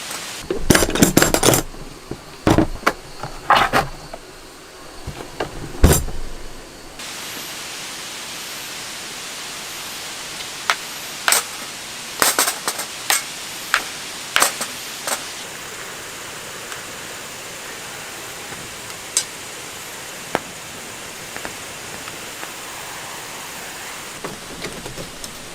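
Steady rain hiss. Sharp clicks cut through it, in a loud cluster over the first seven seconds and then singly every second or two.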